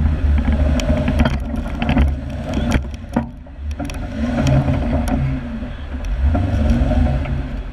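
Off-road Jeep engine revving up and down under load as it climbs a muddy, snowy trail, with a few sharp knocks in the first three seconds.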